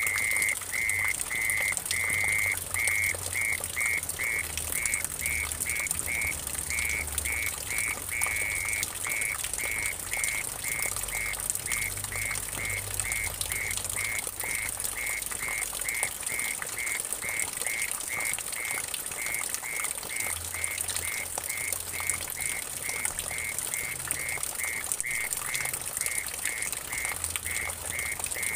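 Mole cricket singing a steady pulsed song, about three chirps a second, over water trickling and splashing into a puddle.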